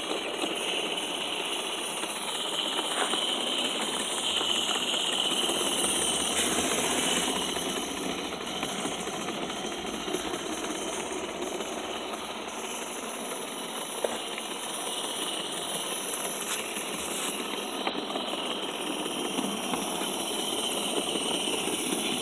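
Accucraft three-cylinder live-steam Shay model locomotive running along the track with a continuous rattling mechanical chatter from its cylinders and geared drive. It is on a test run after its seized cylinders and crank were freed.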